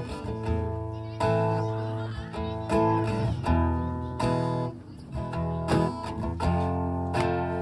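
Acoustic guitar strummed, playing chords that change every second or so.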